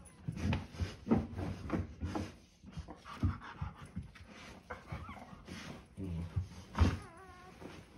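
German Shorthaired Pointer bitch in labor panting in repeated breaths and rustling the blankets as she digs and nests in the whelping box. Near the end a newborn puppy gives a thin, wavering whine.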